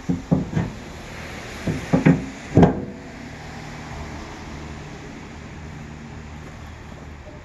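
A quick series of about seven knocks and clunks in the first three seconds, the loudest near the end of the run, then a steady low hum.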